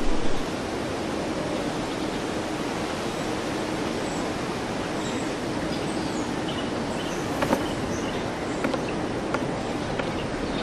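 Steady outdoor ambience, an even rushing hiss, with faint scattered bird chirps; a brief tick about seven and a half seconds in. Background music cuts off in the first half-second.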